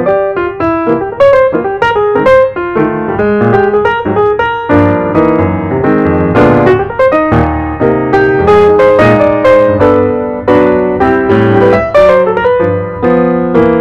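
Background piano music: a lively tune of quick, bright notes.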